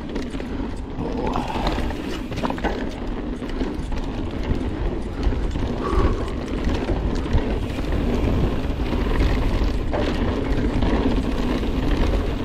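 YT Capra mountain bike riding down a wet dirt trail: steady tyre and wind rumble with many small knocks and rattles from the bike over the bumps, a little louder in the last few seconds.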